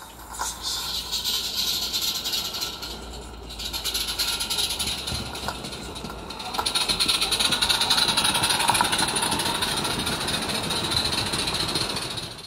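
Pearce live-steam 16mm-scale model of the W&L locomotive Countess running with a train: steady steam hiss and rapid exhaust beats mixed with wheel noise on the track, getting louder about six and a half seconds in as the engine draws close.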